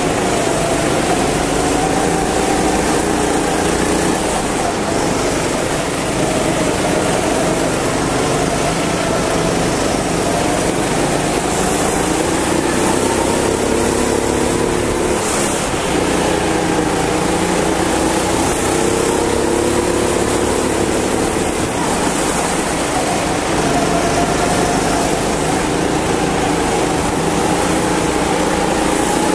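Go-kart engine heard from on board, running under load and rising and falling in pitch as the kart accelerates out of corners and slows into the next, over a steady rushing noise.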